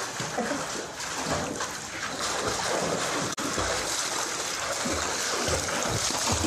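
Water splashing and churning as a swimmer strokes with his arms and kicks his feet through a pool.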